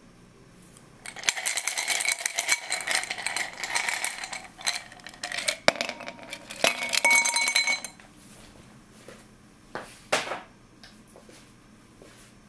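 Ice cubes tipped from one glass into an empty stemless glass, clattering and clinking against the glass, which rings, for about seven seconds. A couple of softer knocks follow near the end.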